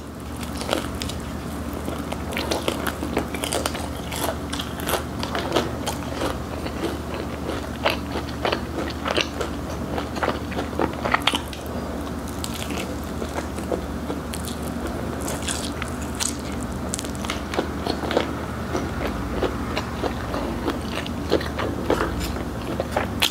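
Crispy-skinned fried chicken with cheddar cheese seasoning being bitten and chewed close to the microphone: a dense, irregular run of sharp crunches and crackles.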